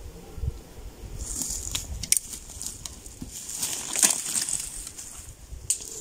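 Footsteps crunching and snapping through dry twigs and undergrowth on a forest floor, with clothing rustling: irregular crackles and soft thumps, loudest about four seconds in.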